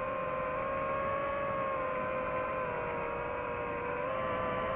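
DJI FPV drone's brushless motors and propellers whining steadily as heard from its onboard microphone, the pitch sagging slightly and then rising near the end as the motor speed changes.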